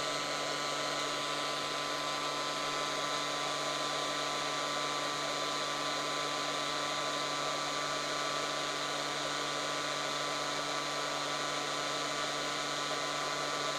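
Hot air gun cranked up to its maximum of 450 running with a steady blowing hiss and a constant motor hum, heating an LED on an aluminium-backed board to melt its solder.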